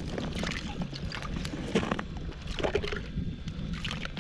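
Water and slush sloshing in an ice-fishing hole as fishing line is pulled up through it by hand, with scattered small clicks and scrapes.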